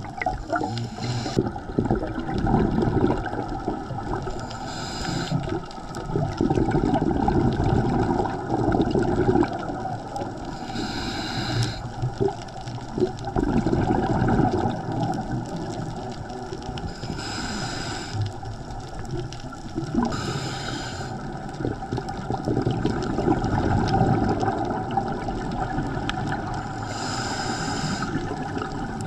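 Scuba diver breathing through a regulator underwater: a short hissing inhale about every six seconds, each followed by a longer rush of gurgling exhaled bubbles.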